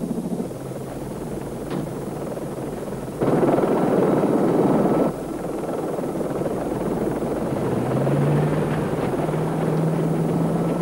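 Helicopter engine and rotor noise, steady throughout. It is louder for about two seconds, starting and stopping suddenly about three seconds in, and a low steady hum joins it near the end.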